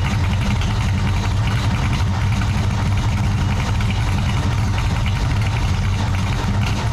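1967 Buick Special's engine, running on Holley Terminator throttle-body fuel injection, idling steadily and evenly.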